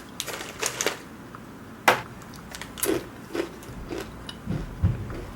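Bites and chewing of crunchy cheese crackers: scattered sharp crunches and small clicks, the sharpest about two seconds in, with a low thud near the end.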